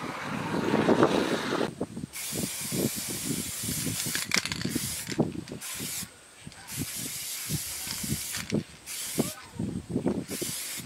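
An aerosol spray can hissing in repeated bursts of a second or so with short breaks, starting about two seconds in. A louder, lower noise fills the first two seconds before the spraying begins.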